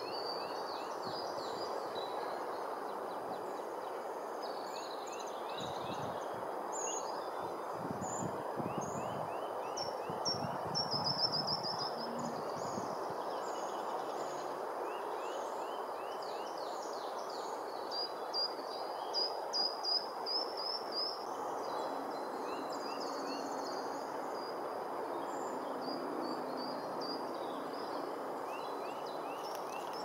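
Small songbirds chirping and trilling over a steady background hiss and rumble, with a run of repeated high notes about two-thirds of the way through.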